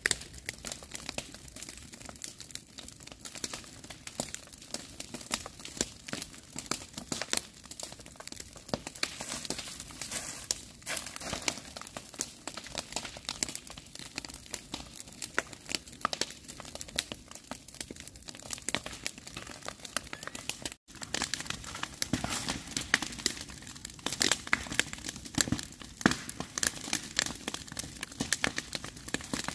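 Dry grass burning: a dense, steady crackle of many small snaps, broken by a momentary gap about two-thirds of the way through.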